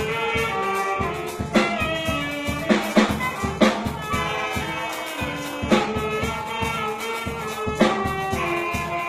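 School band playing a tune, with held brass and wind notes over drum beats.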